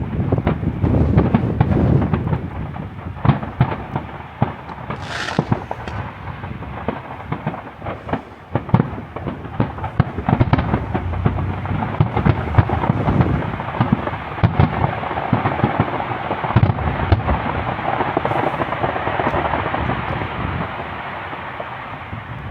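Fireworks display: a continuous barrage of bangs and crackling, with a deep rumble under it and a short high-pitched hiss about five seconds in.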